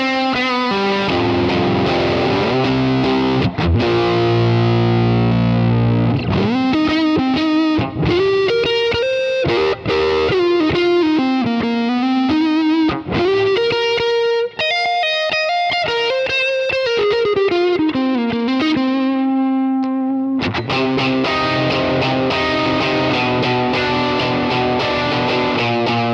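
Overdriven electric guitar through a Kemper Profiler's '65 Deluxe Reverb profile with the Marshall Plexi Bright tone stack, mids full up for a brighter, Marshall-like crunch. It plays ringing chords, then a single-note lead line with string bends from about six to twenty seconds in, then chords again.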